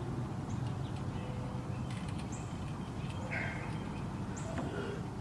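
Outdoor background: a steady low rumble with two short, high bird chirps about two seconds apart and a few faint knocks.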